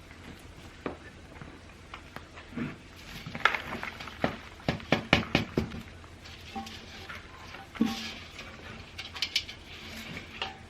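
Irregular scraping, rustling and sharp knocks of soil being worked into a plant container by hand, with a cluster of quick clicks and taps in the middle.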